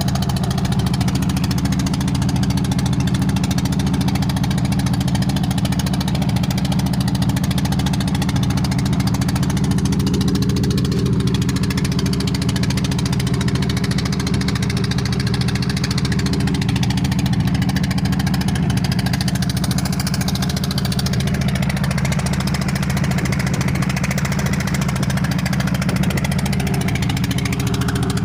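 Wooden fishing boat's engine running steadily under way, a constant low drone that does not change in pitch or level.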